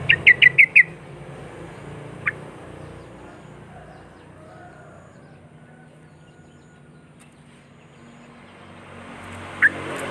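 Yellow-vented bulbul (trucuk) calling: a quick run of five short, sharp notes at the start, a single note about two seconds in and another near the end, over a steady background hiss.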